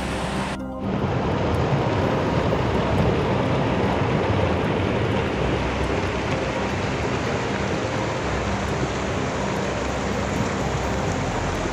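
Fast-flowing mountain creek rushing over rocks and small cascades: a loud, steady rush of white water, briefly cut off just under a second in.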